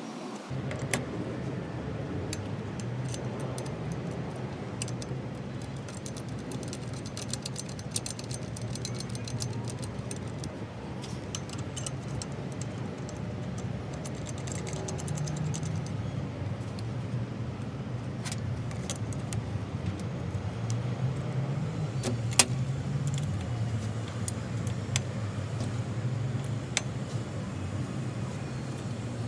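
Home-made belt grinder, driven by an angle grinder, running steadily with a low hum, over which many small metallic ticks and rattles come and go, with a few sharper clacks.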